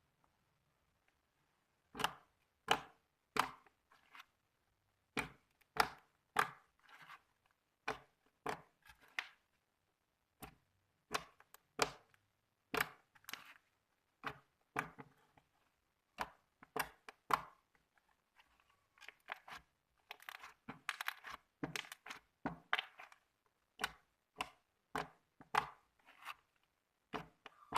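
Thick, glossy slime being squeezed and poked, giving sharp wet clicks and pops about one to two a second. Partway through comes a quicker run of crackling pops.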